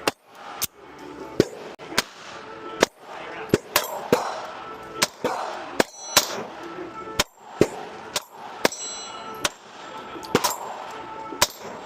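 A 9mm pistol firing shot after shot at a steady pace, about sixteen shots, some in quick pairs.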